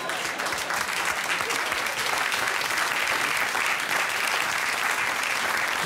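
Audience applauding: many people clapping together in a dense, steady clatter.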